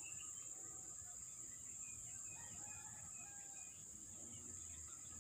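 Faint outdoor ambience: a steady high-pitched insect drone with scattered small bird chirps.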